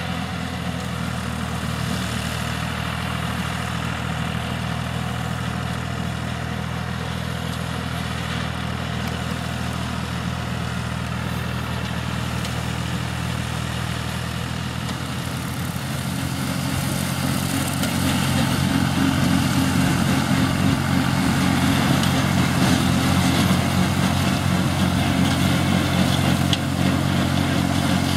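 Ferrari Cobram 65 RS tractor's diesel engine running steadily while the tractor mows tall, uncut grass. The engine grows louder a little past halfway through.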